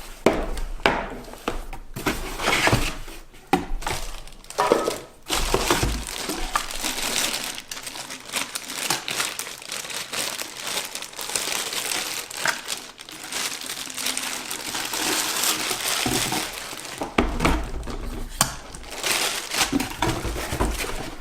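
Packing material crinkling and rustling as electric kettles are unpacked from their boxes, with scattered knocks and clicks from handling.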